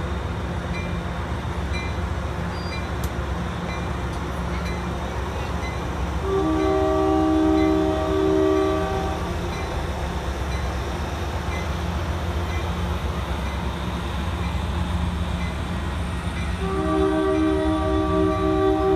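Amtrak Pacific Surfliner train rolling through the station with a steady low rumble. Its air horn sounds twice, each a chord of several tones held for about three seconds, the second starting about seven seconds after the first ends.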